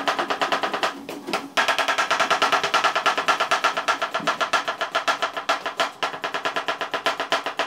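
A chef's knife chopping onion fast on a cutting board: a rapid, even run of knocks, about eight strokes a second, with a brief break about a second in.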